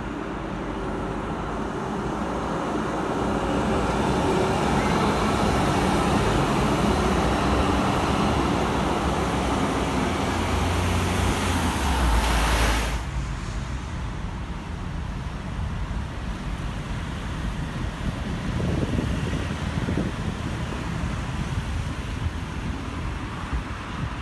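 A Zurich tram approaches and passes on street track, its running noise building over the first few seconds. A van drives by close at about twelve seconds. The sound then cuts off abruptly to quieter steady street traffic.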